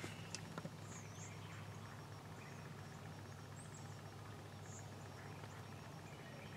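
Quiet morning woodland ambience: a steady low hum with a few faint, brief high chirps from small birds scattered through it, and a couple of faint clicks in the first second.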